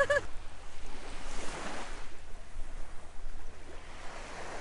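Small waves washing onto the shore: a steady rush of surf that swells about a second in.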